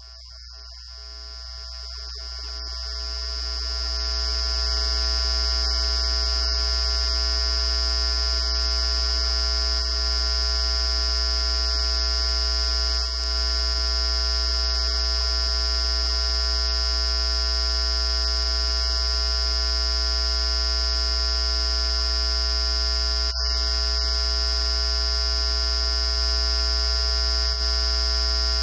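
Steady electrical buzz and hum in the sound system or recording chain: a strong low hum with a high whine and many steady tones between them. It swells over the first few seconds, then holds level and loud, with a brief click about two-thirds of the way through.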